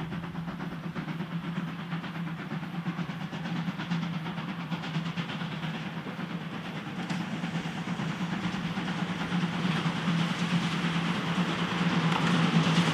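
Steam locomotive 64 518 with its train approaching on the line, growing steadily louder, with a steady low hum throughout.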